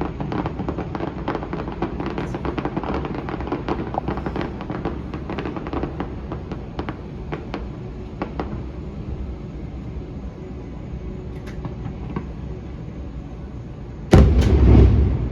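Fireworks popping and crackling in quick succession, dense at first and then thinning out. Near the end comes a sudden loud, deep rumble about a second long.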